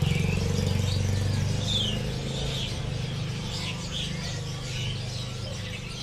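A motor vehicle's engine runs with a low steady hum that slowly fades away, while small caged birds chirp faintly a few times.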